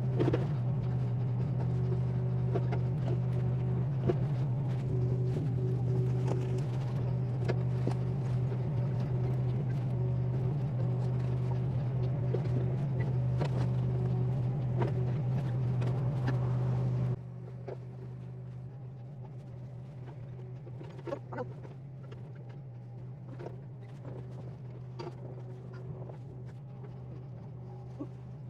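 SANY SY26U mini excavator's diesel engine running at a steady pitch. About two-thirds of the way through it drops suddenly to a quieter level, with a few faint clicks later on.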